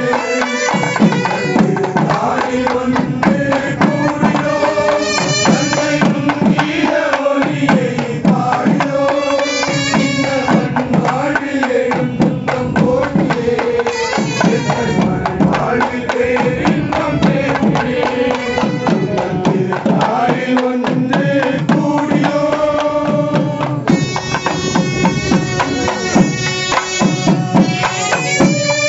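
A group of men singing a Tamil devotional song together into microphones, with a double-headed barrel drum beaten with a stick keeping a steady rhythm beneath.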